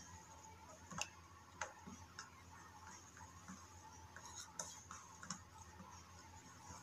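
Faint, irregular clicks of a wooden craft stick knocking against a clear plastic bowl while stirring white glue and water together.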